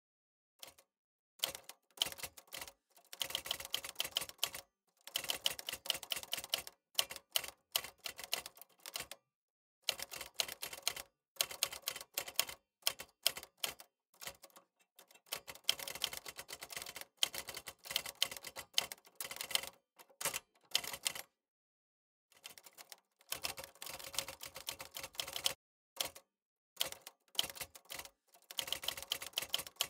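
Typewriter keys clacking in rapid runs of typing, broken by short pauses between runs.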